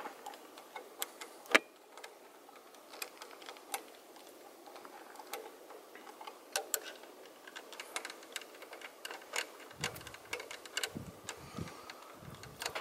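Small, irregular metallic clicks and ticks of a screwdriver working the two points-plate screws on a Harley-Davidson Shovelhead ignition, with a few low handling knocks near the end.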